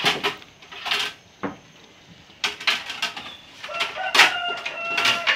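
A metal ladle clatters in a pot of fish soup, followed by several short, sharp sips of the hot soup from the ladle. A rooster crows in the background near the end.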